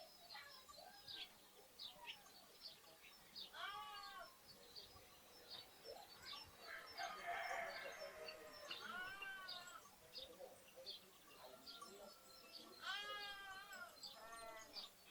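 Lambs bleating: a few high, wavering bleats, one about four seconds in, one about nine seconds in and a pair near the end. Sparrows chirp throughout.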